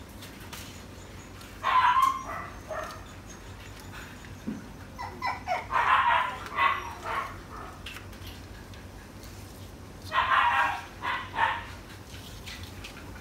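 Young puppies crying with short yelps and whines in three brief bouts, over a low steady hum.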